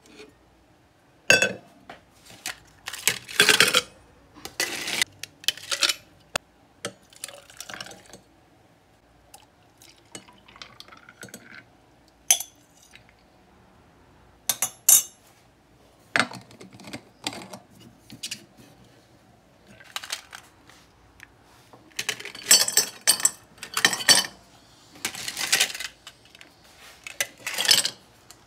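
Ice cubes clinking and clattering into a stainless-steel tumbler and a glass mason-jar mug, in several bursts of sharp clicks. About ten seconds in comes a short sound that rises in pitch.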